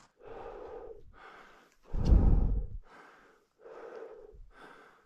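Heavy, laboured breathing of a climber near the summit at high altitude, close to the microphone: several breaths in a row, with one loud outward breath about two seconds in that blows across the mic.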